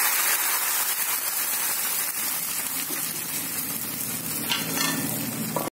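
Broken-wheat dosa batter sizzling as it is poured onto a hot dosa griddle: a steady hiss that eases a little and cuts off abruptly near the end.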